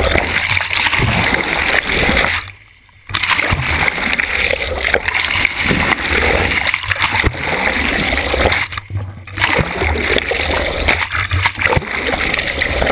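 Water rushing and splashing against a GoPro camera held at the surface from a moving boat, a continuous churning wash. It drops out briefly a few times, about two and a half seconds in, near nine seconds and near eleven seconds.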